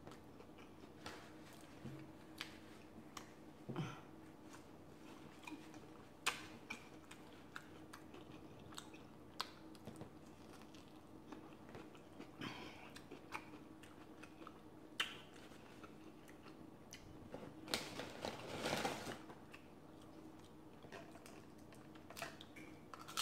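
Close-miked chewing and biting of a beer-battered fish taco and tortilla chips, with scattered small crunches and mouth clicks, and one longer, louder stretch about eighteen seconds in.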